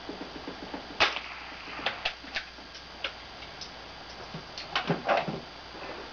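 Clicks and knocks from handling a scoped Marlin .22 bolt-action rifle. A sharp crack about a second in is the loudest sound, followed by scattered lighter clicks and a quick cluster of knocks near the end.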